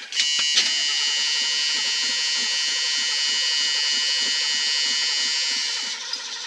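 Starter motor cranking a 1970 Ford Boss 302 small-block V8 on a cold start with the choke set: a steady high whine over a fast, even beat of compression strokes. The cranking stops about six seconds in.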